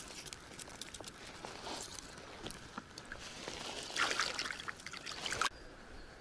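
Shallow river water splashing and trickling over pebbles at the water's edge, louder for a moment about four seconds in, then cut off suddenly.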